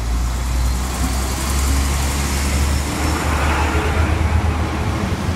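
Network Rail Windhoff MPV track-cleaning unit running past at close range: a steady, deep diesel rumble with wheel-on-rail noise that swells about three seconds in.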